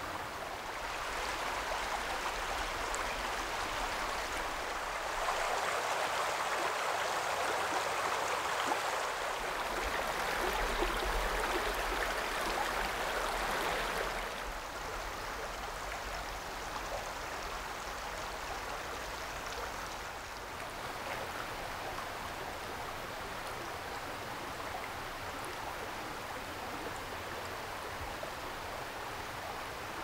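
Shallow creek running over gravel: a steady rush and babble of flowing water, louder for the first dozen seconds or so, then dropping to a softer, even flow a little before halfway through.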